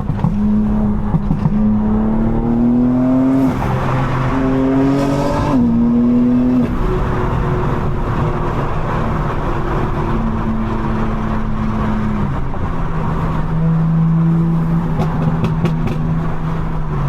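Tuned BMW M4's twin-turbo S58 inline-six accelerating hard, its pitch climbing and then dropping sharply at two upshifts in the first six seconds, then running steadily at cruising speed.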